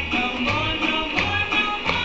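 Dance music with a steady beat and a melody over it.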